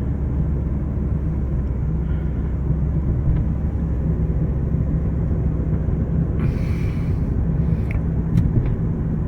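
Car driving, heard from inside the cabin: a steady low rumble of engine and road noise with a constant engine hum, and a brief hiss about six and a half seconds in.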